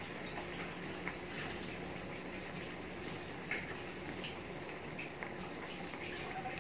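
Cornstarch-thickened sauce of a squid and celery stir fry simmering in a wok over a gas flame: a steady hiss with a few small pops, over a low steady hum.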